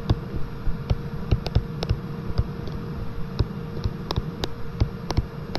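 Stylus tapping and knocking on a tablet screen while writing by hand: a string of irregular sharp clicks over a low rumble, with a steady hum underneath.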